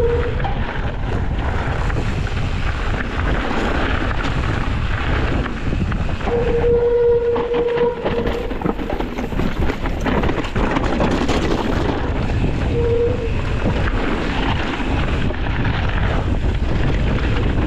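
Wind buffeting an action camera's microphone on a fast mountain-bike descent, with the tyres rolling over dirt, leaves and rocks and the bike rattling. A short steady squeal sounds about six seconds in, lasting a second and a half, and again briefly near thirteen seconds.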